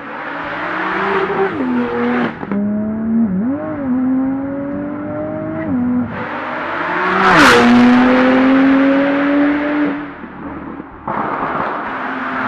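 Porsche 991.2 Turbo's twin-turbo flat-six, breathing through a Kline Inconel exhaust, accelerating hard. The engine pitch climbs steadily, then drops sharply at several upshifts, and is loudest about seven and a half seconds in.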